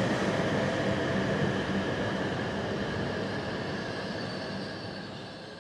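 N700 series Shinkansen train rolling slowly past a station platform as it slows to a stop: a steady rumble with faint high tones above it, gradually fading.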